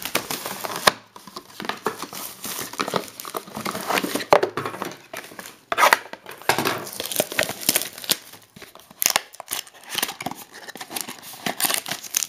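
Plastic and paper packaging crinkling and tearing as a sealed trading card box is unwrapped and opened, in irregular rustles with sharp crackles.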